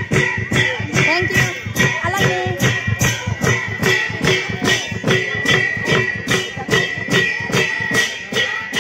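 Music with a fast, steady beat and a sung melody over it.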